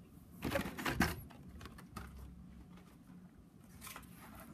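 Clacking and rustling of blister-carded Hot Wheels die-cast cars being handled, in a quick cluster about a second in and once more near the end, over a faint low room hum.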